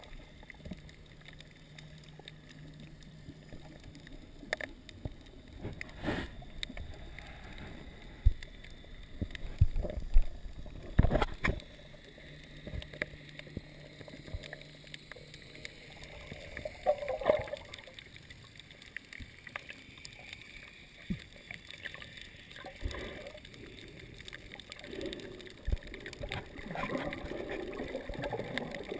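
Underwater sound picked up by a camera in a waterproof housing: muffled water movement with scattered sharp knocks and clicks, the loudest a cluster about ten seconds in. A faint low hum comes and goes twice, and the water noise grows busier near the end.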